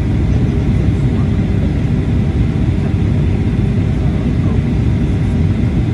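Steady, low-pitched cabin noise inside a Boeing 737-800, from its CFM56-7B turbofan engines and the airframe, even in level throughout.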